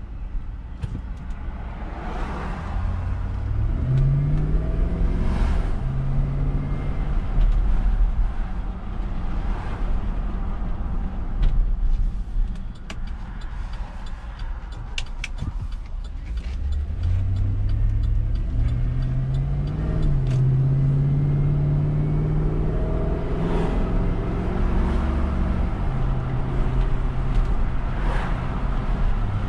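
2011 Chevrolet Suburban's 5.3-litre V8 on the move, accelerating twice, its note climbing in steps as the automatic gearbox shifts up, over steady road rumble.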